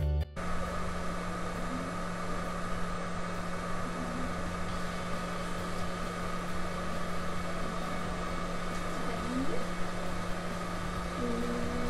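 Steady machine hum and hiss of laryngeal endoscopy equipment, starting abruptly about a third of a second in. A few faint short voice sounds from the patient come through, with one held tone near the end, as in the sustained vowel asked for during the examination.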